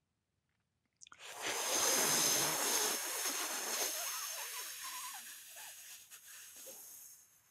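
A long, slow breath blown out through pursed lips, close to the microphone: a hiss that starts suddenly about a second in, is strongest at first and slowly tapers off over about six seconds.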